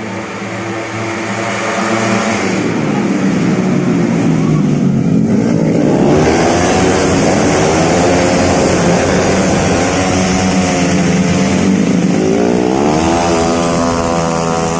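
Several racing automatic scooters with tuned 131cc engines running hard past the trackside, their engine notes overlapping and sweeping up and down in pitch. The sound gets louder about two seconds in as the pack comes close.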